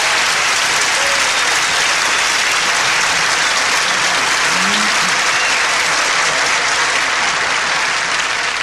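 Large audience applauding steadily, welcoming a performer on stage; the clapping eases slightly near the end.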